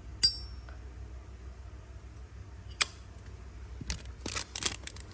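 Two sharp metallic clinks from a Zippo lighter being handled, the first with a brief ring, followed near the end by a run of rapid rustling clicks.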